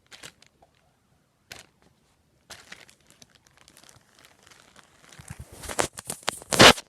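A bag being handled and crinkled as squishy balls are put back into it. At first there are a few scattered rustles, then busier and louder crinkling over the last two seconds.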